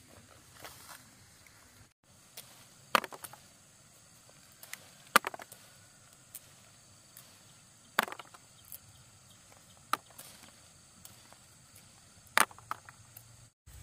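Scattered sharp clicks and light knocks, one every two or three seconds, from peanut pods being picked off freshly pulled plants by hand.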